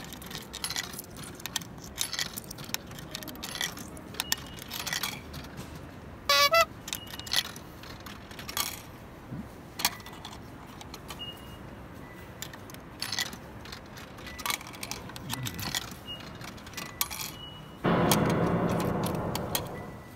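100-yen coins clinking and clicking as they are fed one after another into a vending machine's coin slot. The machine takes only four coins and will not accept more. A short run of rising electronic tones comes about six seconds in, and a loud sustained noise starts near the end and fades away.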